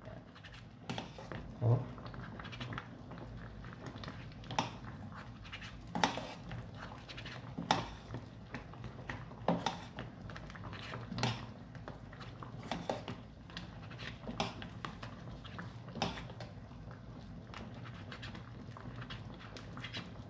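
Metal spoon stirring a simmering, flour-thickened sauce in a steel pot, knocking and scraping against the pot in sharp irregular clicks about every second or so, over a steady low hum.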